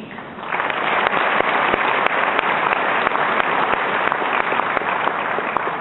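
Audience applauding: many hands clapping together, swelling about half a second in and easing off near the end.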